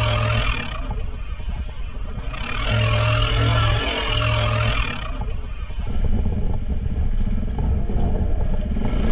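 ATV engine running with changing revs, with stretches of rushing hiss over it: one at the start and a longer one from about two to five seconds in.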